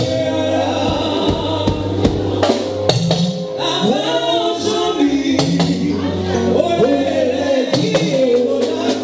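Church choir singing a Yoruba gospel song together, over sustained bass notes, a drum kit with cymbals, and a shekere (beaded gourd shaker) keeping a steady rhythm.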